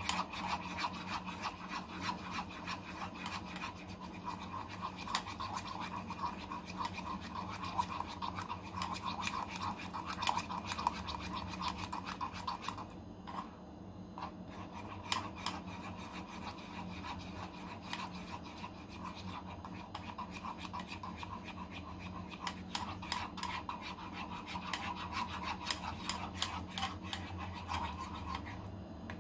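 A spoon stirring briskly in a small enamel saucepan, scraping and clicking rapidly against the sides and bottom of the pan. The stirring pauses briefly about thirteen seconds in, over a steady low hum.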